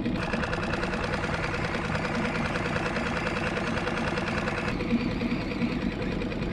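Small outboard motor on a one-person skiff running steadily at trolling speed. A higher, even rhythmic whir over it stops about two-thirds of the way through.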